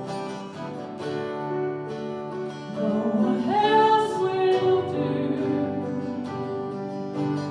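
Worship song: a voice singing over strummed acoustic guitar, rising to a louder held note about halfway through.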